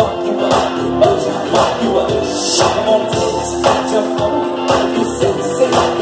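Live rock band playing loudly: electric guitar, saxophone, bass and drums with a steady beat of about two hits a second, with sung vocals.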